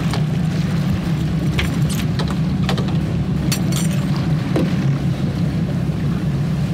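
Boat engine running steadily at trolling speed, a constant low drone, with scattered sharp metallic clicks and rattles of gear being handled.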